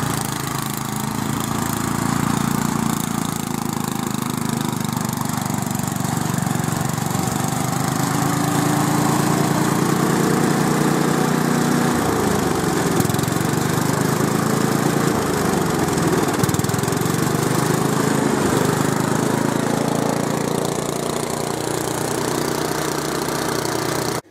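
Westwood ride-on garden tractor's engine running steadily while mowing long grass. Near the middle its note sags and picks up again three times.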